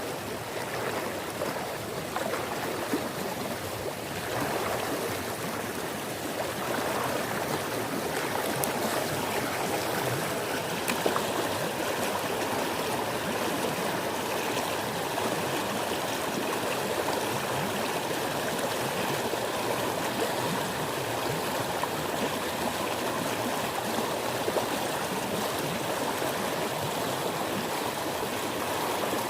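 Flowing river water, a steady rushing noise.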